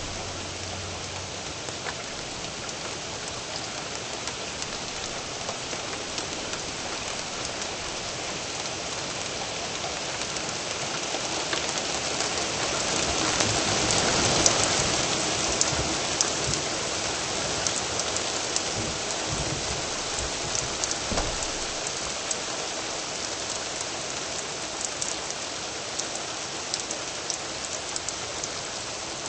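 Steady rain falling, with scattered sharp drop clicks; it swells to its loudest about halfway through, then eases slightly.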